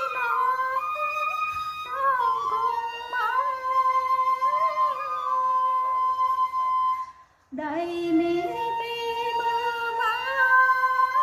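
Tày-Nùng sli folk singing: a woman's voice holding long, wavering notes. The singing breaks off briefly about seven seconds in, then resumes.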